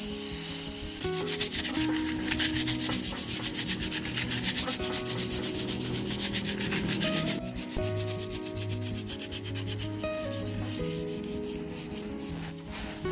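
Hand sanding of a painted car spoiler with coarse P100 sandpaper: rapid back-and-forth rubbing strokes that fade out about seven seconds in.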